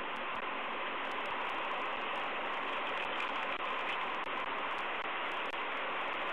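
Steady, even hiss of background noise with no calls, knocks or other distinct events.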